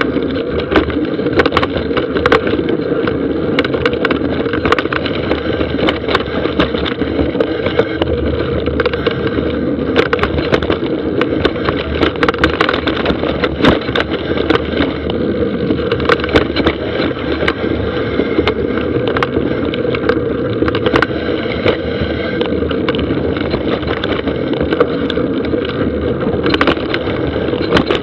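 A mountain bike descending a dry dirt forest trail, picked up by an action camera riding along: a steady rumble of tyres on dirt and wind, with frequent sharp knocks and rattles as the bike hits roots and rocks.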